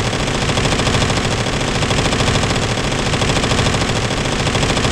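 PTR MP5-clone submachine gun firing one continuous fully automatic burst, a fast, even string of shots inside an indoor shooting range.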